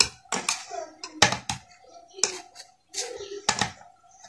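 Steel knife blade clinking and scraping against a steel plate as set besan barfi is cut and a piece pried loose, a string of sharp, irregular clinks.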